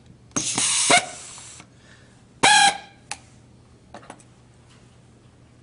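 Sherex Flex 5S pneumatic rivet nut tool cycling to set a rivet nut. A burst of air-motor and air-exhaust noise starts about half a second in and tails off over about a second. A second, shorter hiss with a whistling tone comes about two and a half seconds in, followed by a few light clicks.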